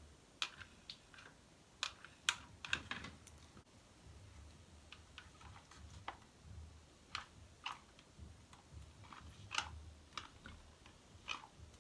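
Light clicks and taps at irregular intervals from handling a ceramic crimping iron as its plates are pressed closed on sections of hair, over a faint low hum.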